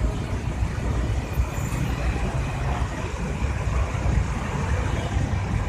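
Steady low background rumble with a hiss above it and no distinct events.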